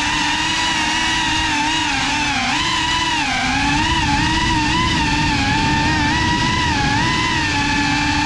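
GEPRC Cinelog35 cinewhoop drone's motors and ducted propellers whining, heard from the camera riding on it. The pitch wavers up and down as the throttle changes, dipping lowest about three seconds in.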